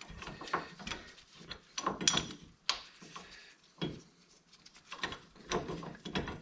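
Metal brake pad being pushed and worked into a brake caliper by hand: irregular clicks, knocks and short scrapes of metal on metal.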